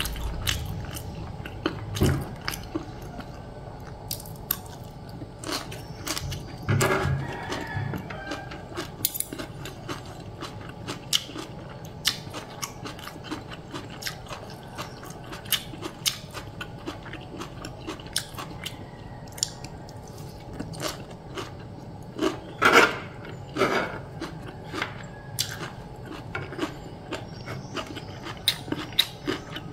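Close-up eating sounds: chewing and biting of food such as bean-sprout vegetable salad and fried tempeh, with many short sharp clicks and crunches, including metal spoon and fork against the tray, a few louder ones about 2, 7 and 23 seconds in.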